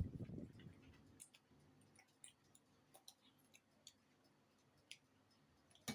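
Near silence broken by faint, scattered clicks and smacks of someone chewing fried chicken, about one a second.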